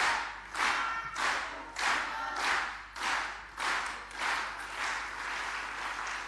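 Crowd clapping in unison in a steady rhythm, about one and a half claps a second, with voices chanting along; the beat breaks up into loose applause about five seconds in.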